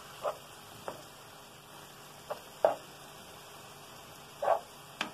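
Ground beef browning in a hot pot with a faint sizzle, stirred with a cooking spoon: about six short scrapes and taps of the spoon against the pot and meat, the loudest near the end.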